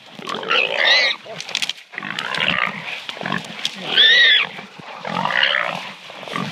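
Small wild hog squealing while catch dogs hold it, in distress, with loud, high squeals about a second in and again around four seconds and rougher cries in between.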